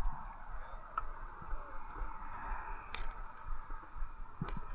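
A few sharp clicks about three seconds in and again near the end, over a faint steady hiss.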